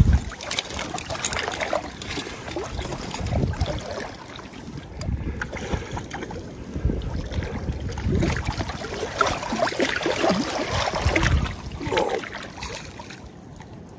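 River water lapping and splashing around a small pontoon boat, with uneven gusts of wind rumbling on the microphone.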